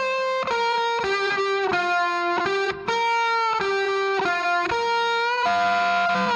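Music: a lone instrument plays a melody of held notes, changing about twice a second, with no drums.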